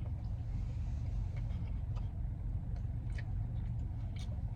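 A steady low hum, with faint clicks and crackles now and then.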